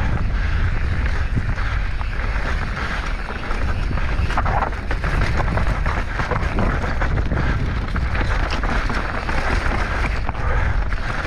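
Mountain bike descending at speed over rough ground: heavy wind buffeting the microphone, with constant rattling and clattering from the bike.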